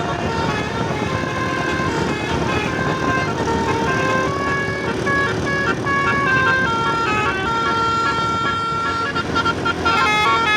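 Basuri telolet horn playing a tune of stepped, steady notes, with one long held note about three-quarters of the way through and a run of quick short notes near the end, over engine and road noise.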